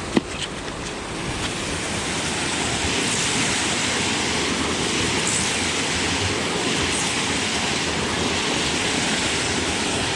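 Wind buffeting the microphone as an even rushing noise that swells about a second and a half in and then holds steady, with a single sharp click right at the start.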